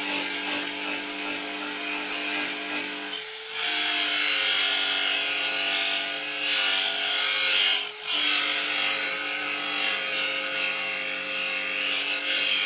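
Handheld electric power tool running steadily with a motor whine, stripping paint from the car's sheet-metal body. It gets louder about three and a half seconds in as it bears on the panel, and eases off briefly about eight seconds in.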